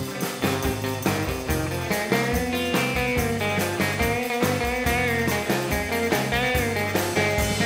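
Background music: a guitar-led blues-rock track with bass and a steady beat.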